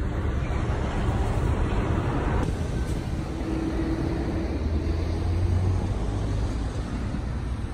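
Street traffic: a steady rumble of passing road vehicles, swelling in the middle as a vehicle goes by, then easing off.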